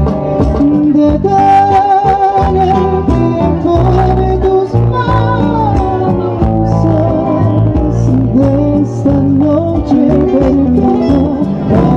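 Live trío romántico music: a male voice singing with vibrato over plucked guitars and an electric bass.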